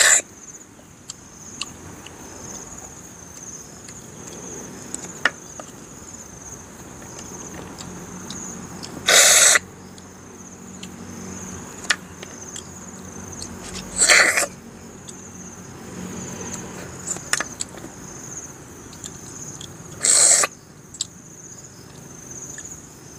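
Cooked freshwater snails being sucked out of their shells: loud slurps of about half a second each, three of them spaced several seconds apart, with small clicks of shells and a bamboo stick picking at the meat in between. A steady high insect drone runs underneath.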